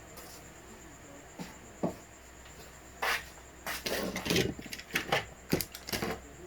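Objects being handled and set down on a workbench: a couple of small clicks, then, about halfway through, a run of irregular knocks, clatters and rustling.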